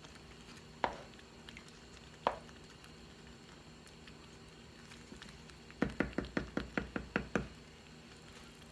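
A wooden spoon knocking against a lavender enamel-coated cooking pot during stirring: two single knocks, then a quick run of about a dozen taps lasting under two seconds.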